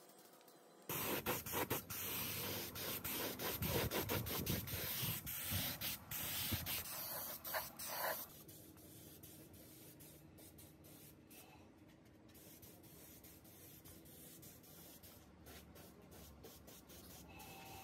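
Compressed-air paint spray gun hissing in short spurts as paint goes onto a hanging brake panel. It starts about a second in and cuts off after about eight seconds, leaving faint background noise.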